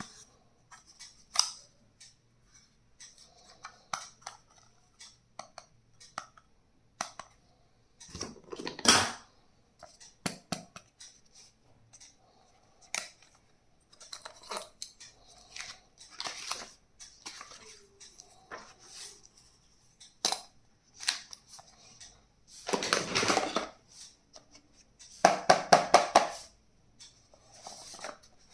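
Stationery items being handled and unpacked: scattered clicks, taps and short rustles, with longer, louder scraping bursts about a third of the way in and again later, then a quick run of about five clicks a second near the end.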